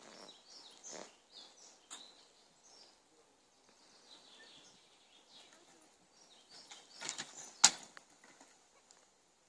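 Small dogs' paws scuffing and scrabbling on dirt and gravel in scattered, faint bursts, with a sharp knock a little before the end as the dogs come together.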